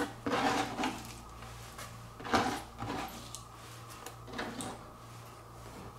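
Hands gathering chopped lettuce and sweeping it across a plastic cutting board: soft rustling and scraping, strongest at the start, with a few brief louder sweeps later.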